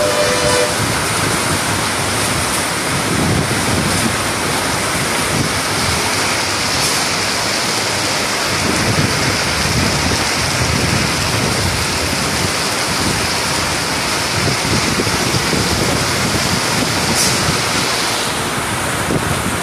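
Torrential rain pouring down steadily, with gusts of wind buffeting the microphone.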